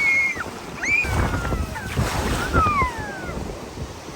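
Ocean surf washing in, with wind buffeting the microphone. Over it come several long, high-pitched cries: one held and then dropping away near the start, then quick sliding ones that rise and fall.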